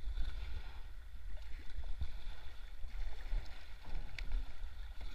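Shallow river water rippling and gurgling around a moving kayak, with a few small splashes and a steady low rumble underneath.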